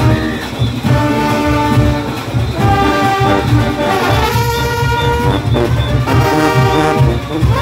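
Junkanoo parade band of trumpets and trombones playing a loud brass melody in held notes, with a steady drum beat underneath.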